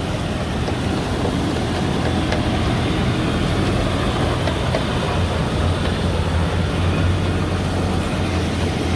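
Sherp 10x10 amphibious all-terrain truck running under way, a steady engine and drivetrain drone. The low hum grows stronger about five seconds in.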